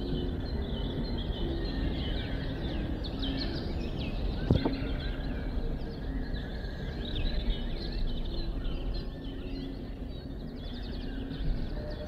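Many birds chirping and calling at once over a steady low rumble, with a single sharp knock about four and a half seconds in.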